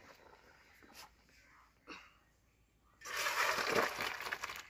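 Boiled elephant-apple pieces and their cooking water poured from a wok into a steel colander: a loud splashing rush of water draining through the strainer, starting about three seconds in and lasting a second and a half. Before it, a couple of faint knocks as the pan is handled.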